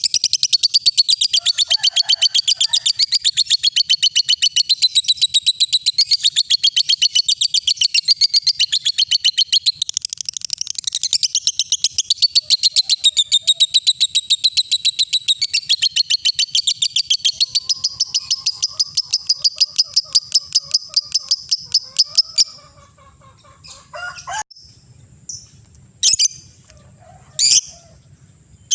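A lovebird's ngekek: one long, very fast chattering trill of high notes, held for over twenty seconds before it stops abruptly, followed by a few short chirps.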